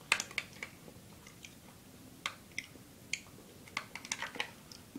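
A spoon clicking and scraping in a plastic yogurt pot, with eating sounds: a dozen or so scattered light clicks at irregular intervals.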